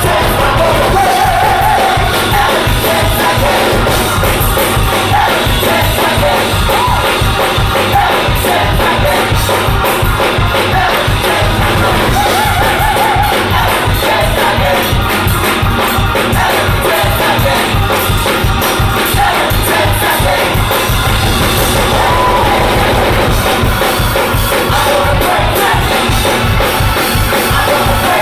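Gospel choir singing with a live band, drums keeping a steady beat.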